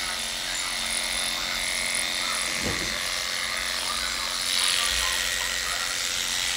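Cordless electric dog clipper running steadily with a constant hum as it shaves through a matted coat, growing a little louder and brighter about four and a half seconds in.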